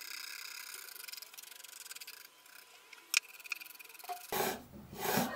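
Hand scraping and sanding along the edge of a guitar fretboard glued onto a mahogany neck. A faint steady scraping, one sharp click about three seconds in, then louder back-and-forth rubbing strokes near the end.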